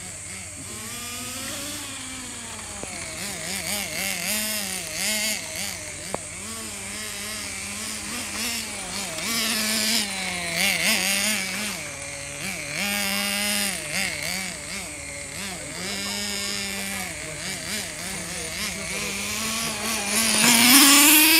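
Small glow-fuel engine of a vintage 1/8-scale Todoroki Road Ace radio-controlled car running hard, its pitch rising and falling as the car speeds up and slows. It grows loudest near the end as the car comes close.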